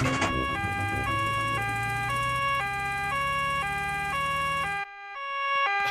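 Cartoon two-tone siren sounding 'nee-naw', high and low notes swapping about twice a second, over a low engine hum from the doctor's car as it drives out to a sick child. The engine hum stops near the end while the siren keeps going.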